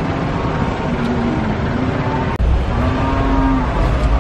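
Roadside vehicle noise with faint voices in the background; it breaks off suddenly about two and a half seconds in and gives way to a louder deep rumble.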